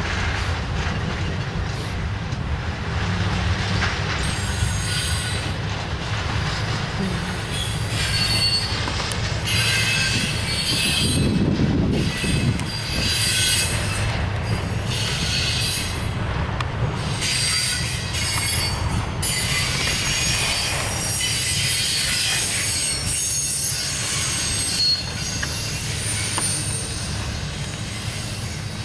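Intermodal freight train of trailers on flatcars rolling past, a steady rumble of steel wheels on rail with high-pitched wheel squeal coming and going in repeated stretches.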